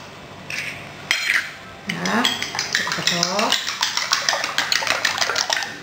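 Fork whisking raw eggs in a ceramic bowl, the tines clinking rapidly against the bowl at about five strokes a second, starting a little past halfway.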